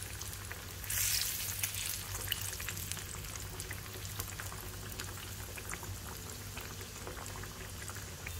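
Battered pork belly pieces deep-frying in hot oil on their second, high-heat fry: a steady sizzle full of fine crackles and pops, which swells louder for a moment about a second in.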